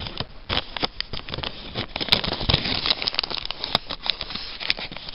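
Small clear plastic parts bag crinkling and rustling as fingers handle it, with a few sharp clicks.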